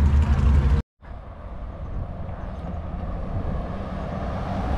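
A vehicle engine running with a loud, deep rumble that cuts off abruptly just under a second in. After a brief gap, a quieter engine rumble with a hiss of passing traffic or wind fades in and grows steadily louder.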